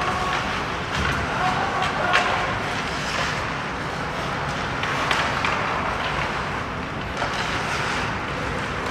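Ice hockey play in an indoor rink: a steady hiss of skates on the ice with sharp clacks of sticks and puck, the clearest about two and five seconds in, over indistinct shouting voices.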